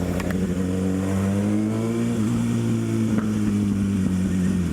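Kawasaki ZX-6R's inline-four engine running at a steady low pitch, easing slightly lower about two seconds in.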